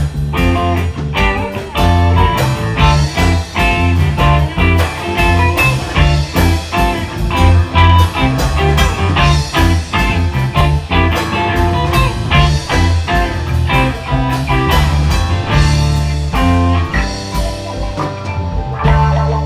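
Blues-rock music with electric guitar, bass and drums, a steady beat.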